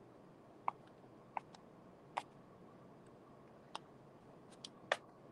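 Light, scattered taps and clicks of a plastic bottle cap being dipped in paint on a plastic plate palette and pressed onto cardboard to stamp circles, about six in all at irregular intervals, the loudest near the end.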